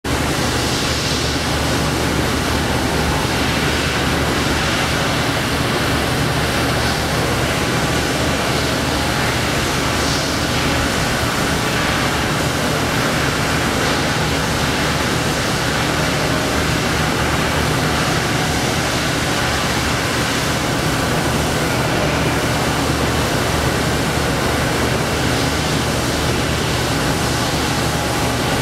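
Steady industrial background noise: a continuous rushing hiss with a low hum and a faint high whine, unchanging throughout.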